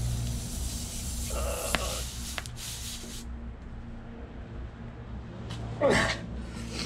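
Hiss with a couple of small clicks as a plug tool is forced into a puncture in a motorcycle's rear tyre; the hiss stops sharply about three seconds in. A short strained grunt comes near the end.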